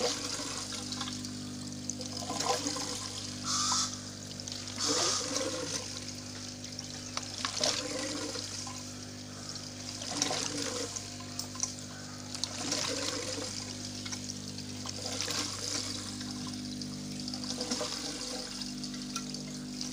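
Water gurgling and trickling in a homemade aquaponics grow bed's plumbing, in irregular splashy spurts every two to three seconds as the bell siphon nears draining. A steady low hum runs underneath.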